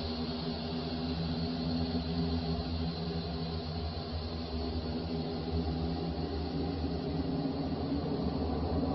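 Horror sound effect: a low, steady droning hum made of several held low tones, with a faint high steady tone above it.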